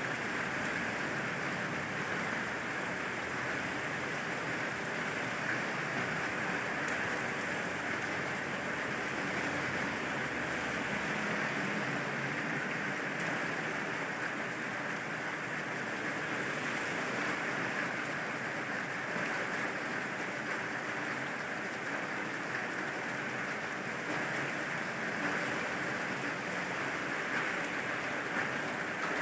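Steady rain falling, an even hiss that neither swells nor breaks.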